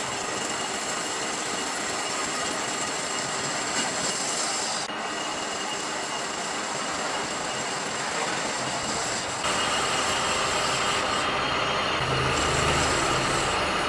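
Steady metalworking noise from machining a steel part, with a high-pitched metallic squeal running through it. Its character changes abruptly about five seconds in and again about nine and a half seconds in.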